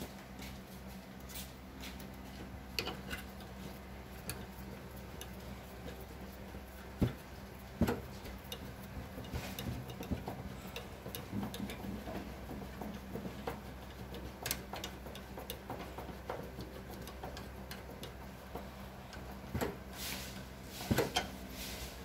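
Irregular small clicks and knocks of a gas water heater's metal and plastic valve parts being handled and fitted, a few sharper knocks about seven, eight and twenty-one seconds in, over a steady low hum.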